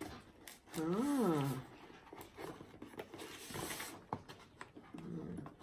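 Brown paper parcel being opened by hand: paper and cardboard rustling and tearing, with a few sharp clicks. About a second in, a short voiced tone rises and falls in pitch.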